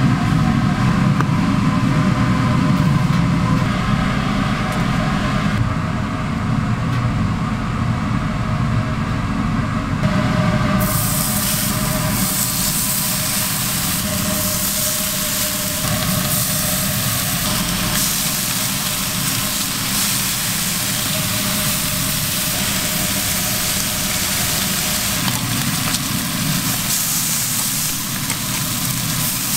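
A steady low kitchen hum with food cooking on a flat-top griddle. About eleven seconds in, a loud steady sizzling hiss sets in as strips of bacon fry on the hot steel plate, with the hum going on underneath.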